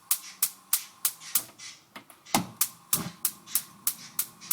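Gas hob spark igniter clicking rapidly, about three sharp ticks a second, while the burner is slow to light, with a couple of duller knocks about two and three seconds in.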